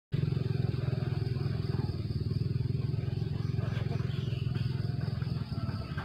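A small engine running steadily with a low, fast, even pulse, easing off slightly near the end.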